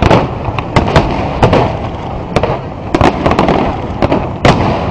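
Aerial firework shells bursting in a dense barrage: many sharp bangs at irregular intervals, sometimes several in quick succession, over a continuous rumble of overlapping bursts.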